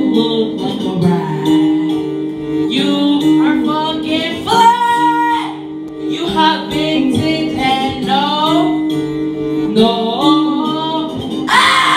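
A woman singing into a handheld microphone over backing music.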